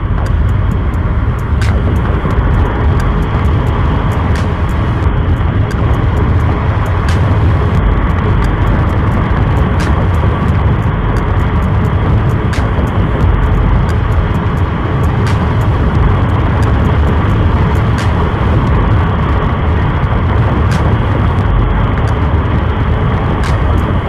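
Yamaha Mio i 125 scooter riding along: steady engine and rushing wind noise on the camera's microphone, heaviest in the low rumble, with many small clicks throughout.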